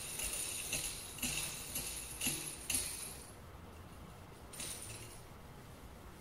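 A metal dubbing-loop spinner tool being twirled to twist a dubbing loop, jingling in short metallic bursts about twice a second that stop about three seconds in.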